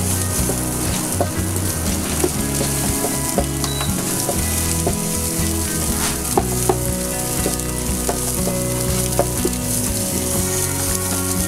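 Beaten eggs sizzling in hot oil in a non-stick frying pan as a spatula stirs and scrapes them, with scattered light taps of the spatula against the pan.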